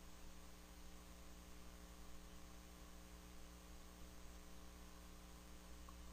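Near silence: a faint, steady electrical mains hum under low hiss.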